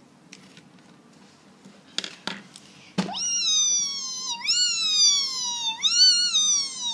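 Whiteboard marker squeaking on a whiteboard: two short clicks about two seconds in, then a loud, high-pitched squeak in three gliding strokes, each rising and then slowly falling.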